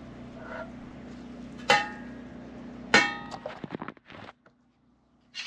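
Thin stainless steel grill panels clanking as they are fitted together: two sharp metallic clangs with a brief ring, under two seconds in and again about a second later, followed by a short rattle of lighter knocks.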